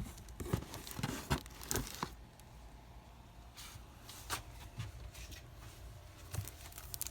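Faint rustling and scattered light clicks of paper and packaging being handled, most of them in the first two seconds.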